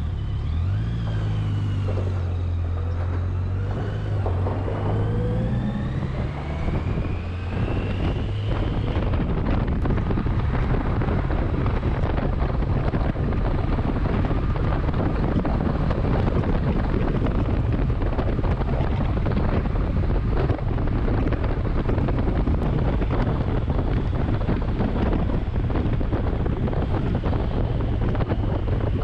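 A 1991 Kawasaki Voyager's inline-four engine pulling away from a stop, its pitch rising through the gears with a shift partway through. After about eight seconds, a steady rush of wind on the helmet microphone at highway speed covers the engine.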